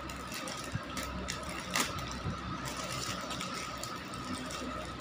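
Thin plastic jewellery sleeves crinkling and clicking as they are handled, with one sharper click a little under two seconds in, over a steady high-pitched whine in the background.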